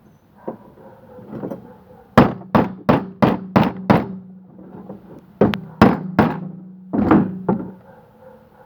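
Hammer-like knocks: six quick strikes about three a second, a short pause, then three more and finally two. A steady low hum runs under the strikes.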